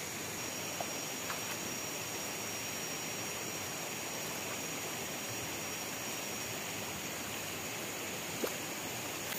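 Shallow forest stream running steadily over rocks, with a few small splashes and ticks as a skinned frog carcass is swished and rinsed in the water, the sharpest about 8.5 seconds in.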